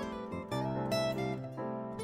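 Background music: an instrumental piece of plucked guitar notes.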